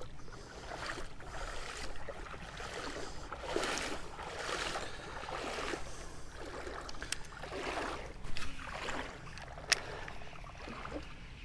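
Creek water sloshing and splashing in a run of swishes about a second apart, with two sharp clicks, the second one about ten seconds in and the loudest sound.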